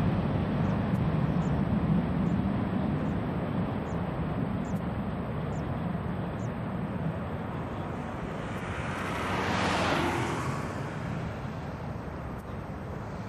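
Boeing 727's three rear-mounted Pratt & Whitney JT8D jet engines at take-off power: a steady low rumble that slowly fades as the airliner rolls away down the runway. A brief swell of hiss rises and falls about ten seconds in.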